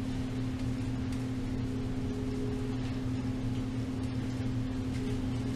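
Steady low machine hum, even and unchanging, with one constant droning tone.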